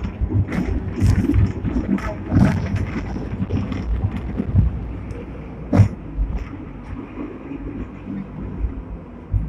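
Sixth-generation Hong Kong double-decker tram running on its rails, heard from inside: a low rumble with frequent clattering knocks from the wheels on the track, and one sharp knock about six seconds in. The running noise grows quieter through the second half as the tram slows toward a stop.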